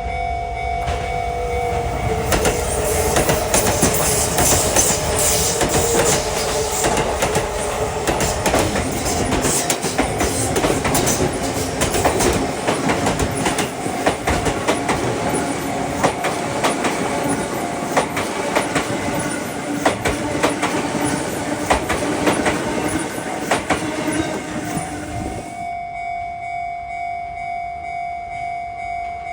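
A Sotetsu 21000 series electric train passing close by, its wheels clacking over the rail joints and its motor whine dropping in pitch. Under it a level-crossing warning bell keeps ringing. Near the end the train noise stops abruptly, leaving only the crossing bell's steady repeating ding.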